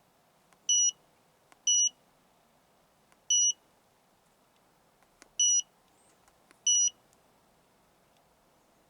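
Autel AL539 handheld scan tool beeping as its keys are pressed: five short, high beeps at uneven intervals, each just after a faint click of a button.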